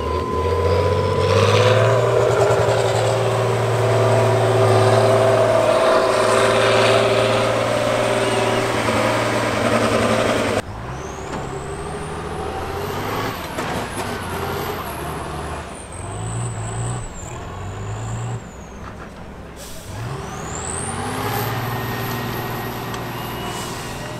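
Diesel engines of heavy six- and eight-wheeled off-road trial trucks running hard under load as they climb through mud, pouring black smoke; the engine sound changes abruptly about ten seconds in as a second truck takes over. A high whistle rises in pitch twice.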